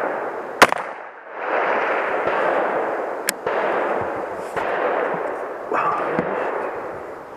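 A single rifle shot about half a second in, and a short sharp high ping about three seconds in, over a loud steady rush of noise that fades and comes back a few times.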